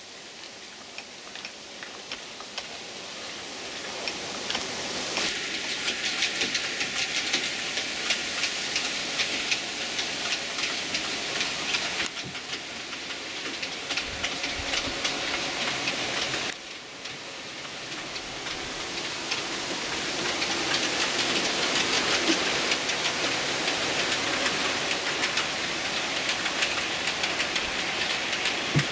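Model railway trains running on the layout: a continuous rattling hiss of small wheels on the rails with rapid clicks over the track, and a faint motor whine in the middle stretch. The sound changes abruptly several times as one clip cuts to the next.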